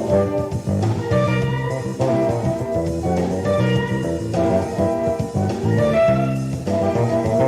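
Live jazz-funk band playing: electric bass with guitar and drums, in chordal phrases that recur about every one and a half seconds.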